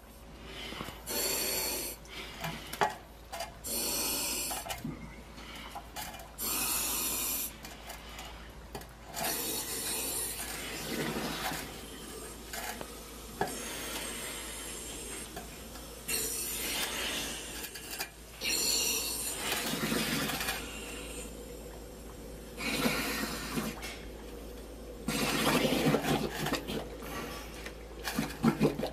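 Diver submerged in a pit of liquid sewage, with repeated bursts of hissing every two to three seconds mixed with gurgling and sloshing of the thick slurry around him.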